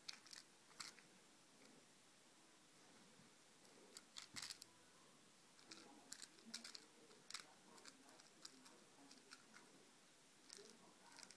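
Faint, scattered scratchy clicks and rustles of a cat pawing and clawing at a hand on a fabric sofa.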